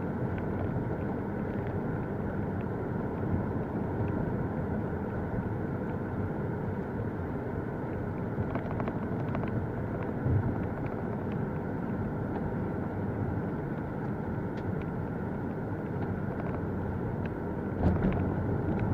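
Steady road and engine noise of a car cruising at just over 30 mph, heard from inside the cabin through a phone dash cam. Two brief low thumps stand out, about ten seconds in and near the end.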